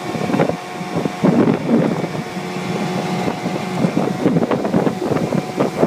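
15 hp Mariner outboard motor running steadily, pushing a jon boat, with wind buffeting the microphone in irregular gusts.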